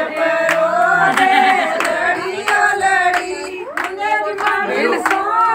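A group of women singing a folk song together, with steady rhythmic hand-clapping keeping the beat.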